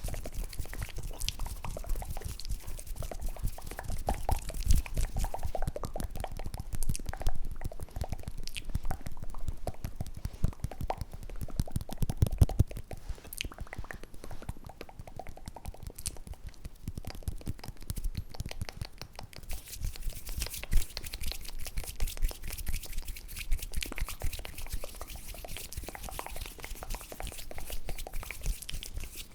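Close-miked ASMR mouth and hand sounds: a dense, continuous run of small wet clicks and crackles.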